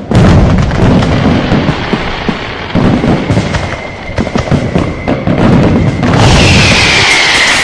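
Fireworks and firecrackers going off: rapid crackling bangs over deep rumbling booms, with a faint steady whistle underneath. About six seconds in comes a loud hissing burst carrying a whistle that falls in pitch.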